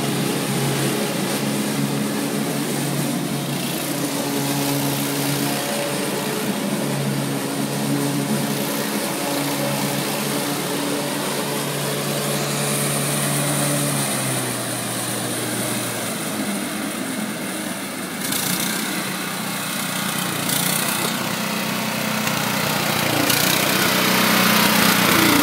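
Exmark Metro 48 walk-behind commercial mower's engine running steadily while cutting grass. It grows louder over the last few seconds as the mower comes close.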